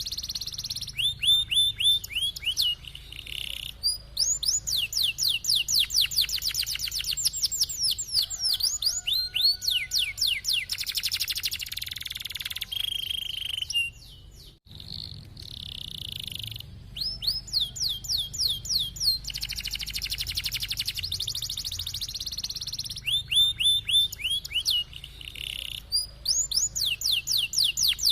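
Domestic canary singing a long, continuous song of rolling trills: fast runs of repeated notes, each sweeping down in pitch, with a short break about halfway through.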